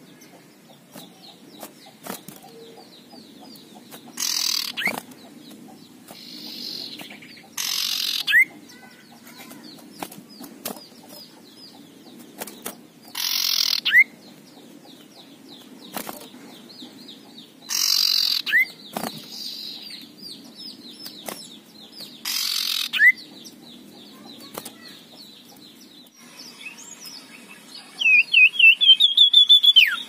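Male common iora giving harsh, rasping 'krek' calls, five in all, one every four to five seconds, each ending in a short rising note. Near the end comes a fast run of repeated notes. Light wing flutters and hops can be heard between the calls.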